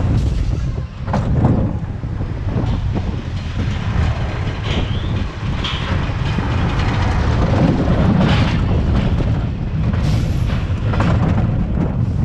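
Preston & Barbieri steel roller coaster train running along its track, its wheels clattering and rumbling over the rails, with a steady low rush of wind on the chest-mounted microphone.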